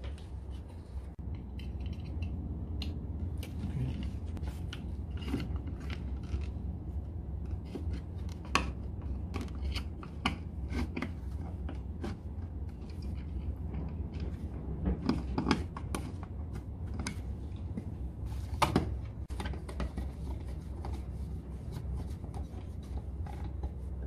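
Irregular small plastic clicks and knocks as a single wall switch and its plastic cover plate are handled, pressed and screwed into a surface-mounted switch box, over a steady low hum.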